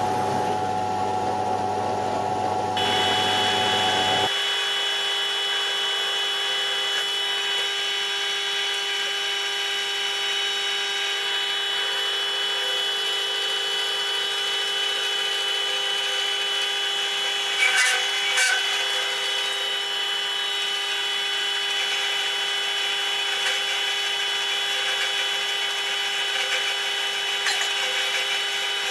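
Milling machine running steadily with the end mill cutting metal, a steady whine of several fixed tones. Its tone changes a few seconds in, and there is a short clatter about 18 seconds in.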